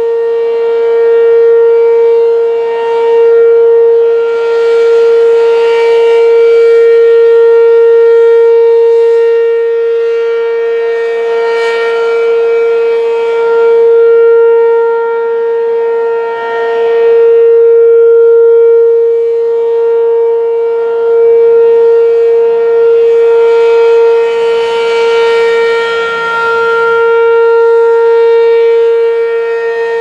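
ASC RM-127 tornado siren sounding its steady Alert signal: one held pitch that swells and fades every few seconds as the rotating horn sweeps past.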